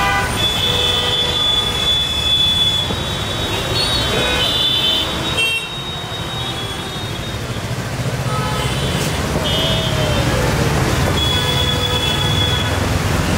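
Heavy road traffic in a jam: a steady rumble of engines and tyres with vehicle horns honking over and over, several held for a second or more.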